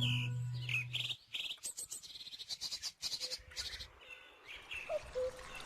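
Background music fades out in the first second, then small birds chirping, with a few quick high trills.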